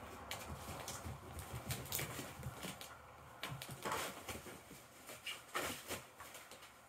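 Kittens scuffling over the fabric cover of a motorized cat toy: irregular rustling with scattered soft knocks and taps, the strongest about 2, 4 and 5.5 seconds in.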